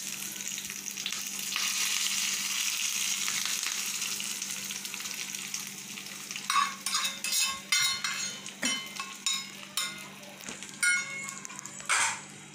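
Hot tadka of oil with mustard seeds, cumin, curry leaves, garlic and dried red chillies poured onto cooked dal, sizzling for several seconds before dying down. Then a spoon stirs it into the steel pot in a quick run of scrapes and knocks.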